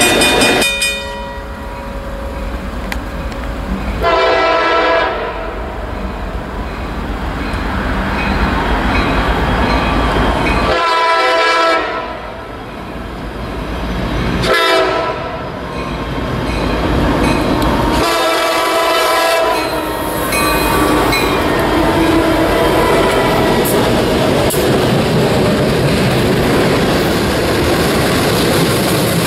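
Multi-tone air horn of a New York, Susquehanna & Western freight led by SD60 locomotives, sounding the grade-crossing signal: a long blast about four seconds in, another about eleven seconds in, a short one near fifteen seconds and a last long one near eighteen seconds. The freight cars then roll over the crossing with a steady rumble and wheel clatter.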